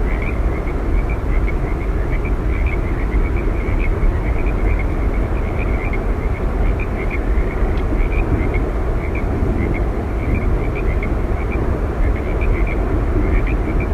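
Yosemite Falls roaring: steady, continuous rushing water, heaviest in the low end. Many short, high-pitched chirps repeat over it throughout.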